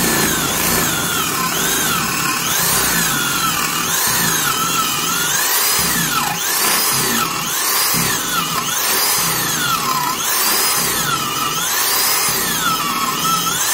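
Hitachi D-10VC 3/8-inch corded drill (350 W, 1800 rpm) boring a 3/4-inch installer's bit into a block of wood. Its motor whine sags and recovers about once a second as the bit loads it, and the chuck has been slipping on the bit's thin shank.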